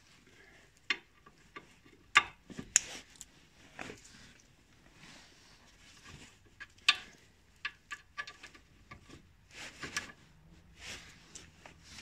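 Steel socket and ratchet clinking on a lower suspension arm bolt as the wrench is fitted, with scattered sharp metallic clicks that ring briefly and a short run of quick ratchet clicks past the middle.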